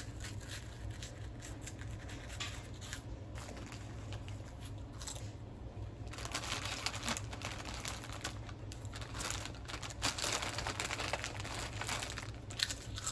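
Plastic chip bags crinkling as they are picked at and handled, with chips being eaten. The crinkling comes in irregular bursts, busiest in the second half.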